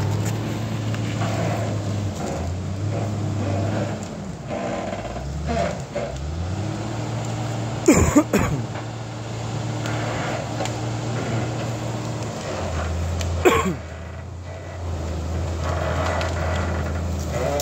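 John Deere 648 grapple skidder's diesel engine working as the machine drags logs, its note rising and falling with the throttle. Two short, sharp, loud bangs cut through: one about halfway through and one about five seconds later.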